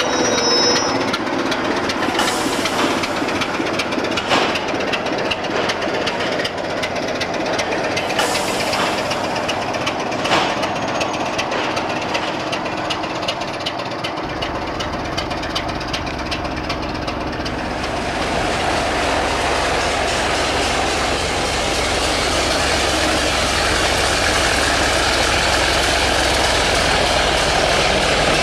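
Diesel locomotive engine running over rail noise, with a few sharp clicks in the first half; the engine sound grows fuller and louder from about halfway through as the locomotive draws nearer.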